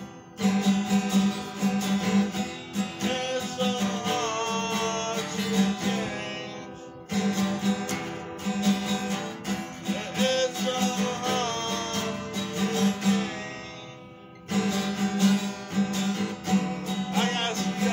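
Acoustic guitar strummed in phrases. The chords die away about seven seconds in and again about fourteen seconds in, then the strumming starts again.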